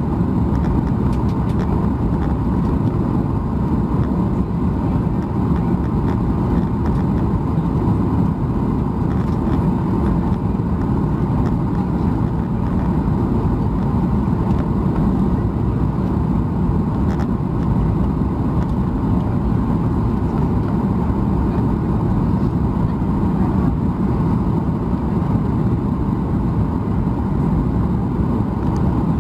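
Steady cabin noise inside a Boeing 737 MAX 8: a constant low rumble of engines and airflow with a faint steady tone, unchanging throughout.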